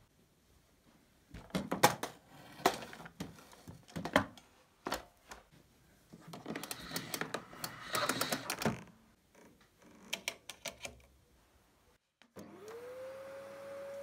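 A series of clicks, knocks and rustling from handling, then near the end a canister vacuum cleaner's motor switches on, its whine rising quickly in pitch and settling into a steady run.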